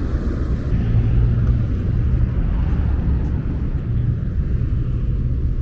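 Steady low engine rumble of road traffic.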